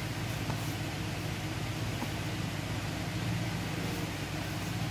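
A steady low mechanical hum with an even hiss over it.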